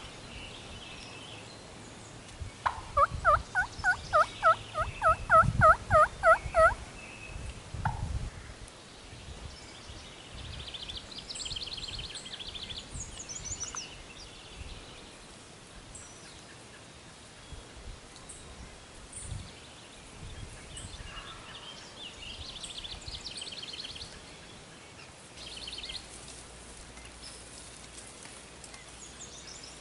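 Wild turkey yelping: a loud series of about a dozen evenly spaced yelps over some four seconds, then one more yelp about a second later. Faint, quick, high songbird trills come a few times afterwards.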